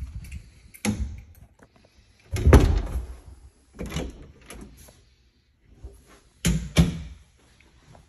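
A wooden interior door being handled, opening and closing: several knocks and bumps, the loudest about two and a half seconds in, and a quick double knock near the end.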